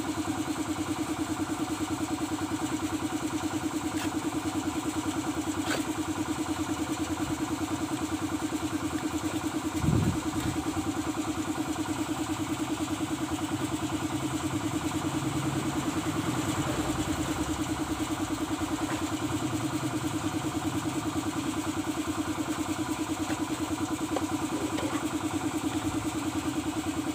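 A steady mechanical drone like a small engine running at idle, with an even pulsing beat throughout. A single low knock about ten seconds in.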